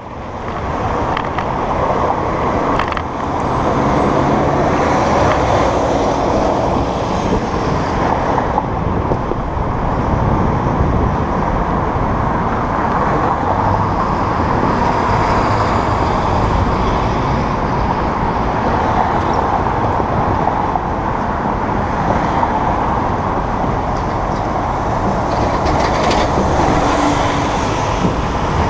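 Steady road traffic noise: cars passing and idling on a wide multi-lane road.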